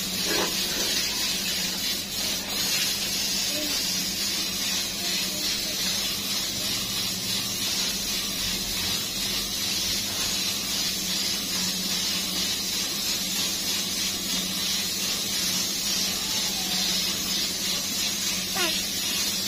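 Gravity-feed air spray gun hissing steadily as it sprays paint, with a low steady hum underneath.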